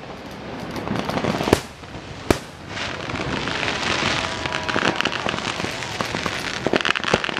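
Fireworks display going off: two sharp bangs in the first few seconds, then a steady crackling hiss thick with small pops as fountains and small bursts fire.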